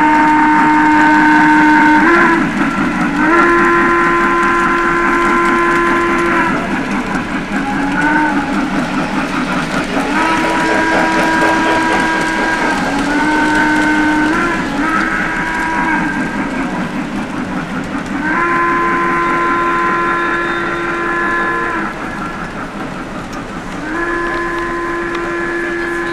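Electronic steam-whistle sound from a model Chesapeake & Ohio steam locomotive, blowing a series of chime-whistle blasts, several long and a few short, each bending slightly in pitch as it starts and stops.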